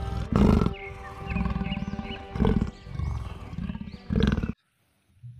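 Big-cat roars and growls, about five deep swells in a row over soft background music, cutting off suddenly about four and a half seconds in.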